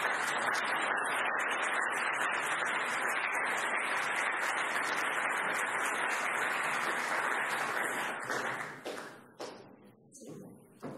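Audience applauding a speaker in a large hall, a dense steady clapping that starts all at once and dies away over the last few seconds.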